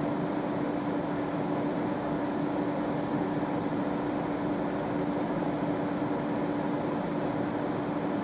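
Steady mechanical hum with hiss, holding one unchanging low tone throughout: constant room machine noise.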